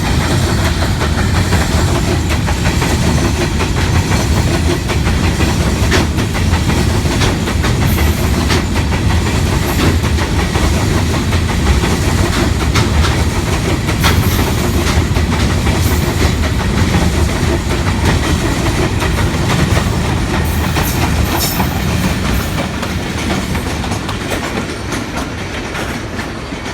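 Karakoram Express passenger train running along the track, a loud steady rumble with wheels clattering over the rail joints; it eases off slightly near the end.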